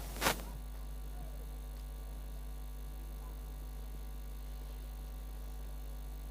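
Steady low electrical hum on the sound feed, with one sharp click about a third of a second in.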